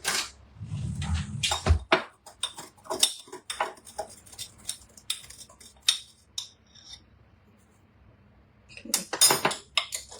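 Kitchen utensils clinking and knocking against a pot and dishes while soup is seasoned: a run of irregular sharp clicks, a pause about seven seconds in, then a louder cluster of clinks near the end.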